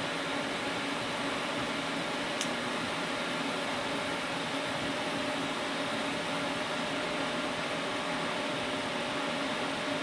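Steady mechanical hum with a hiss, unchanged as the TIG arc goes out, and one faint click about two and a half seconds in.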